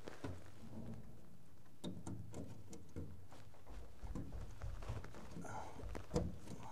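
Quiet handling noise of thermostat wires and a wire nut being worked by hand: scattered small clicks and rustles, with a slightly louder tap about six seconds in.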